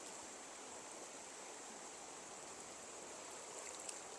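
Faint, steady rush of a small stream's flowing water.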